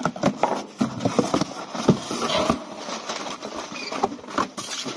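Cardboard box flaps scraping open and a stiff plastic blister pack crinkling and rustling as it is pulled out, with many short scratchy rustles and taps.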